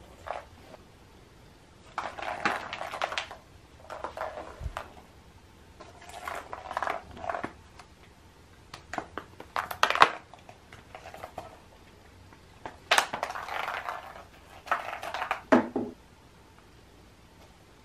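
Small hollow plastic Easter eggs being batted and knocked about, clattering and rolling in scattered bursts with a few sharp clicks.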